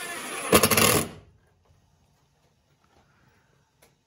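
Cordless drill/driver running as it drives a screw into a wooden door-frame header. It gets louder for about half a second as the screw seats, then cuts off about a second in. Near silence after, with a few faint ticks.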